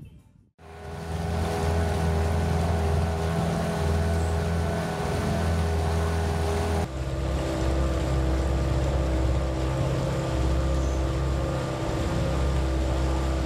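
Small boat's outboard motor running at a steady speed over a constant hiss. It starts about half a second in, and its pitch drops slightly about seven seconds in.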